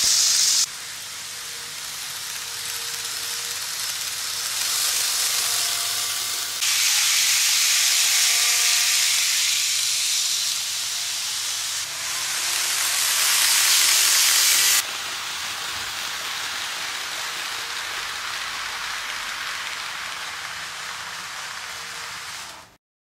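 N scale model trains running on layout track: a steady hissing whirr of wheels and motors with faint whining tones underneath. It jumps abruptly in level several times and cuts off near the end.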